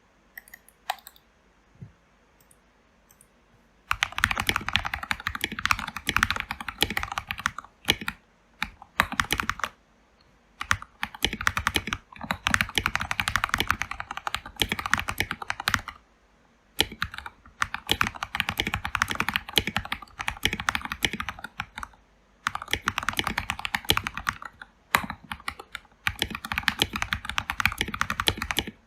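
Typing on a Keychron K2 mechanical keyboard with lubed Gateron Yellow linear switches and SA-profile ABS keycaps. A few single key presses come first, then from about four seconds in, fast runs of keystrokes broken by short pauses.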